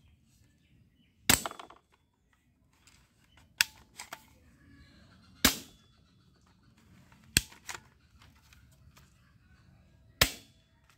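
Plastic toy rifle's spring action snapping: five sharp clacks about two seconds apart, some followed by a softer click.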